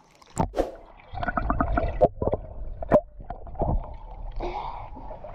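Pool water sloshing and gurgling with irregular muffled knocks, heard with the microphone dipping in and out of the water at the surface of an inflatable pool.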